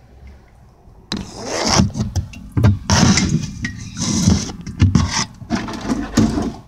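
Loud, irregular rubbing and scraping noise that starts about a second in and goes on in a run of rough blows until just before the end: the phone's microphone rubbing and knocking against a blue plastic tub as it is pushed in close and moved about.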